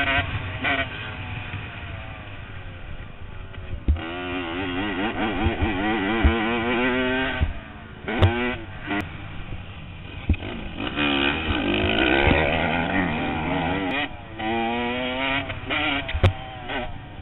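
Dirt bike engine on a motocross track, its pitch rising and falling again and again as the throttle is opened and closed, heard from a helmet camera with a few sharp knocks over the bumps.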